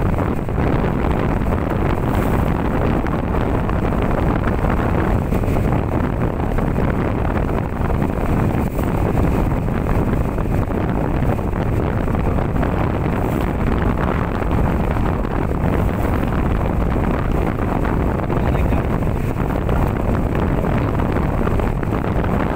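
Steady running noise of a small wooden motorboat under way, with wind rushing on the microphone.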